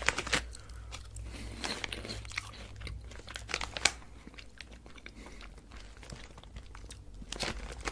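Crunching and chewing of Lucky Corn, a salty Japanese corn puff snack, close to the microphone: irregular sharp crunches, the loudest a little before halfway, with softer chewing in between.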